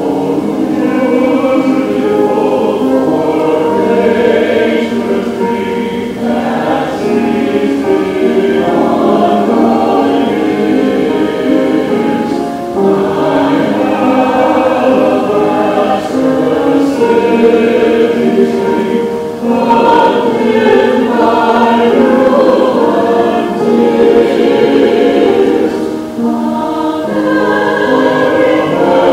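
A group of voices singing a hymn together, with short breaks between phrases every six or seven seconds.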